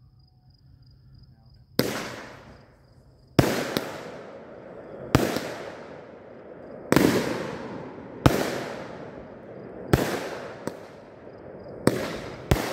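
Aerial fireworks bursting, about nine sharp bangs spaced one to two seconds apart from about two seconds in, each trailing off in a long fading crackle and hiss. Crickets trill faintly in the quiet before the first bang.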